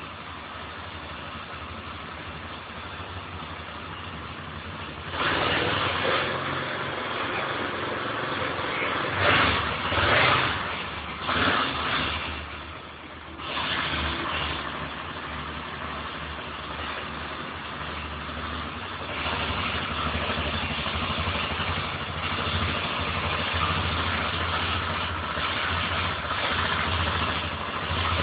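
Motorcycle engine idling steadily. It is blipped with the throttle three or four times, briefly and louder, about nine to twelve seconds in, then settles back to a steady idle.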